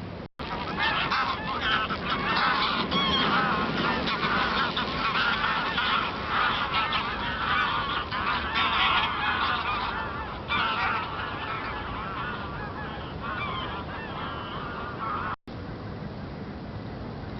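A flock of geese honking, many calls overlapping into a continuous clamour, a little thinner in the later part, and cut off abruptly near the end.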